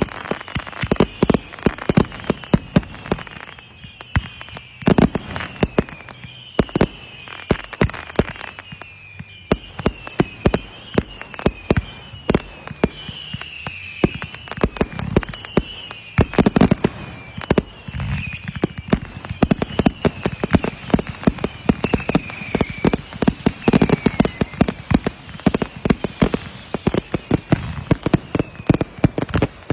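Fireworks going off: a rapid, uneven string of bangs and crackling pops, with short whistles falling in pitch repeating every second or so.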